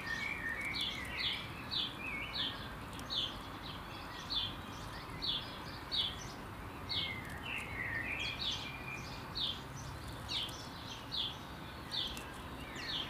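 Birdsong: one bird repeats a short, high, falling call about twice a second, with bursts of lower twittering now and then. A steady outdoor hiss runs underneath.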